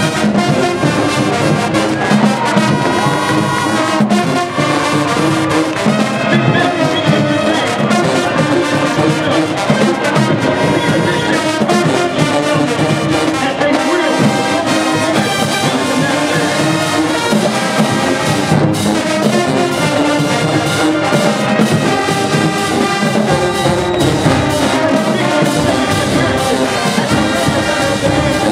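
A large marching band playing a loud tune led by trombones and trumpets, with drums keeping a steady beat.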